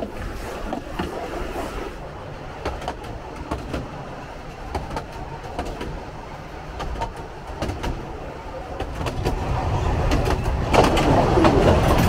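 Narrow-gauge steam train carriages running along the track: a steady rumble with irregular clicks of the wheels over the rails. It grows louder near the end.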